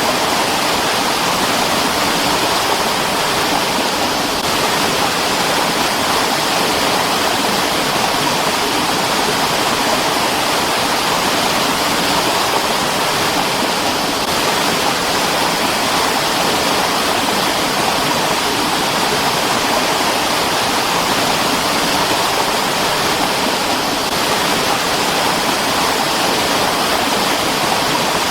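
Mountain stream rushing and splashing over rocks, a steady, unbroken water sound.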